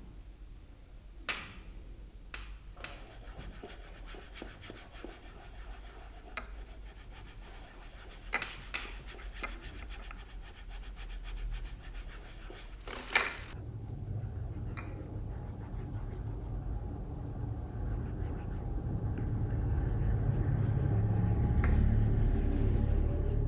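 Leather shoe being polished by hand, with soft rubbing strokes and a few sharp clicks. About halfway through, a low steady hum comes in and grows gradually louder.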